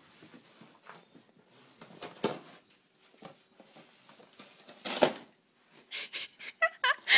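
Dog tearing at a treat box with its mouth: irregular rustling and crackling with a few louder knocks, the strongest about five seconds in. Near the end, a brief high-pitched sliding sound.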